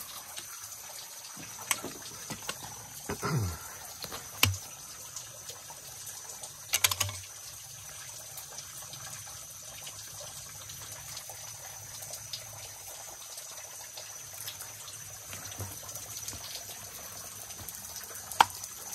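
Creek water trickling steadily over limestone bedrock, with a few short sharp knocks and scrapes scattered through it, the sharpest near the end.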